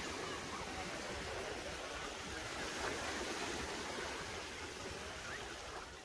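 Surf washing onto a beach: a steady, even wash of waves.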